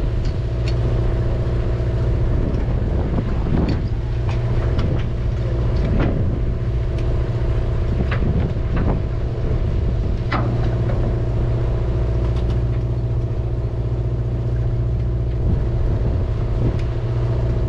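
Party fishing boat's machinery running with a steady low hum, with scattered small clicks and knocks from the deck.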